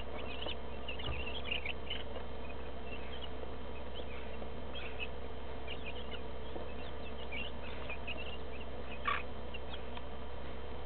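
Flock of two-week-old broiler chicks peeping: many short, high cheeps scattered throughout, with one louder call about nine seconds in, over a steady low hum.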